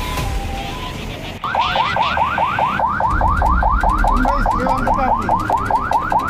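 Police vehicle siren in a fast yelp, a rising sweep repeating about five times a second, starting about a second and a half in and heard from inside the vehicle's cabin. Before it, two alternating steady tones sound for about a second.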